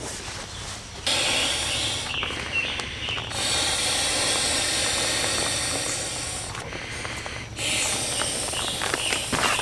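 Breath blown by mouth into the valve of an inflatable sleeping pad: long rushing exhalations that start suddenly about a second in, with a short break for breath after about six seconds before the next blow.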